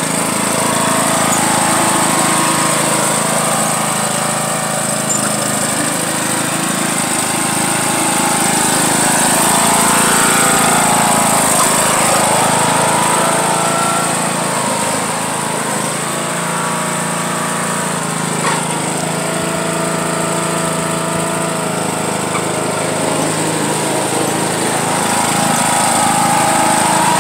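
John Deere riding lawn mower engine running under load as it drives through mud and grass towing a rider on a rope. The engine note rises and falls in pitch a few times.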